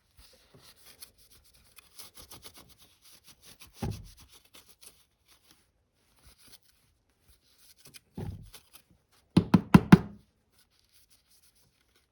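A rag rubbing over a radio's back plate in quick strokes, with a thump about four seconds in. Later come another thump and then a quick run of about five knocks, the loudest sounds, as the plate is handled.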